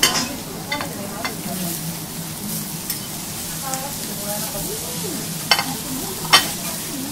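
Wagyu steak and vegetables sizzling on a hot teppanyaki steel griddle, with sharp metallic clicks of the chef's spatula and knife against the plate, the two loudest near the end.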